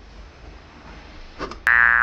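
Cartoon sound effect: after a soft swish, a loud buzzy, twangy tone with many overtones cuts in sharply near the end, the start of a boing-like effect.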